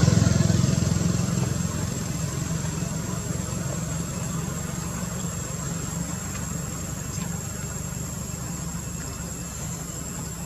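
A motor engine's low drone, loudest at the start and slowly fading away.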